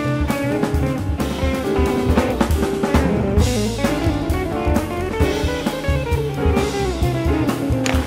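Studio jazz recording: a drum kit with cymbals and snare playing a busy groove under grand piano, with a bass part underneath.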